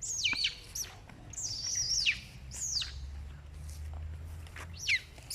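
Baby monkey crying in high, shrill, bird-like squeals that slide down in pitch, about four of them.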